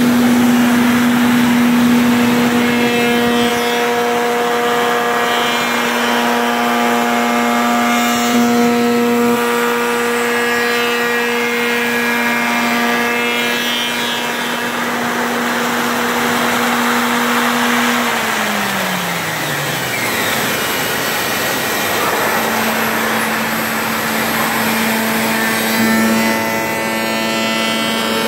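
CNC router spindle running a shaped profile cutter through wood: a steady high whine over the hiss of cutting. Shortly after the middle the whine slides down in pitch as the spindle slows, and a few seconds later it is back at its steady pitch.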